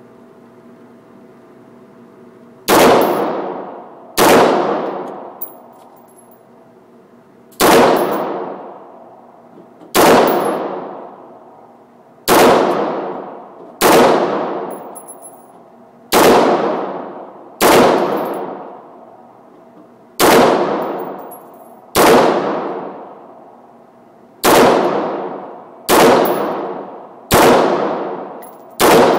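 AR-15 rifle with a SureFire Warcomp flash hider firing .223 Wolf Gold 55-grain rounds in slow semi-automatic fire. There are about fourteen shots, one every one and a half to two and a half seconds, starting a little under three seconds in. Each shot trails off in a long echo.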